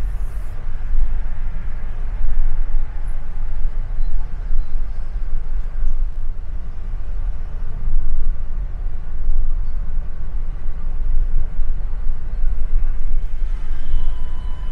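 Low rumble of car and road noise while driving, its level rising and falling unevenly.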